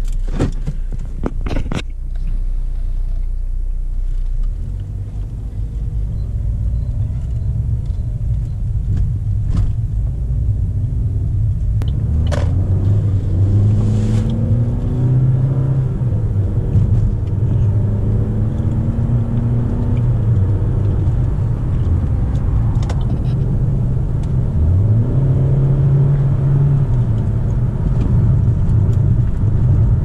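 In-cabin sound of a 2015 Buick Encore's 1.4L turbocharged Ecotec four-cylinder on a test drive: a steady low engine and road rumble. The engine note rises as the car accelerates and drops back several times, as at gear changes. A few sharp clicks come in the first two seconds.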